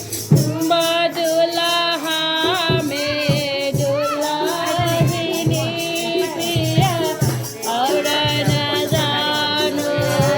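Devotional singing: voices holding long wavering notes over a steady beat from a rattle or shaker and light percussion.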